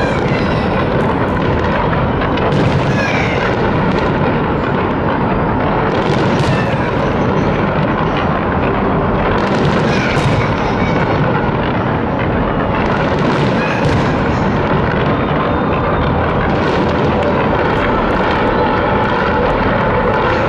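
Fireworks barrage: many shells bursting in a continuous loud rumble and crackle, with sharper bangs standing out every few seconds.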